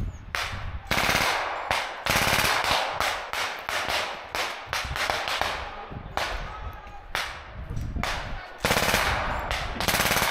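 Infantry small-arms fire: repeated shots and rapid bursts of automatic fire, with a quick run of shots near the end.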